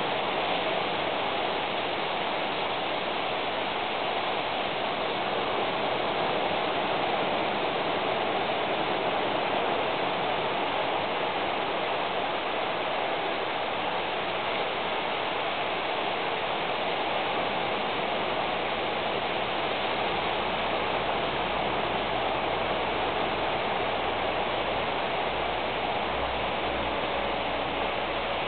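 Steady, even rushing noise with no distinct events; a faint low rumble joins it about two-thirds of the way through.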